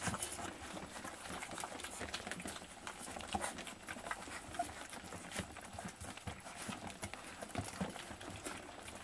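A litter of puppies eating together from a stainless steel puppy feeding trough: a busy, irregular patter of lapping, chewing and small clicks.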